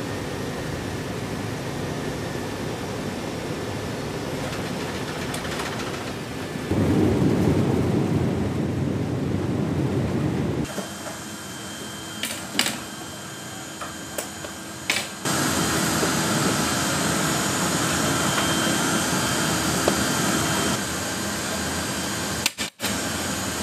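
Steady rushing noise of a C-17 Globemaster III's engines and air systems heard from inside the aircraft, changing abruptly at cuts, with a louder, deeper stretch partway through. In a quieter stretch a few sharp metallic clicks and clanks come from floor and ramp fittings being handled.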